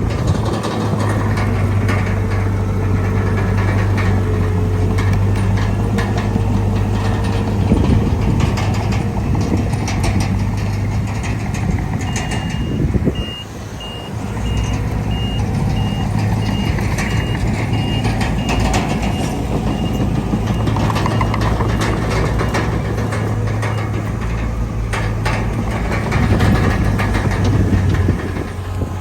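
Heavy diesel earthmoving machinery, a bulldozer and dump trucks, running steadily under load. From about twelve seconds in, a reversing alarm beeps evenly for about eight seconds.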